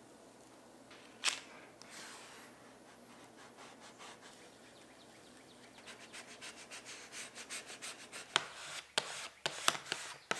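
Adhesive sign vinyl being pressed and rubbed down onto PVC sheet: a faint rubbing that builds into a run of quick squeegee strokes, with sharper scrapes and taps in the last couple of seconds.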